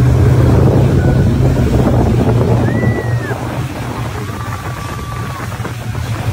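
Motorboat engine running steadily under way, with wind buffeting the microphone and the boat's wake churning. Two brief high tones sound near the middle.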